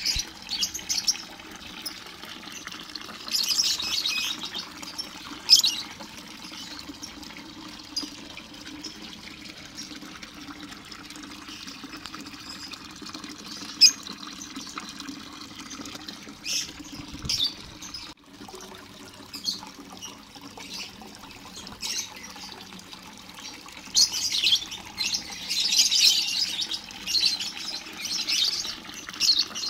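Lovebirds chirping and chattering in short high-pitched bursts, scattered at first and growing into a busy run of chatter over the last few seconds, with wing flaps among them.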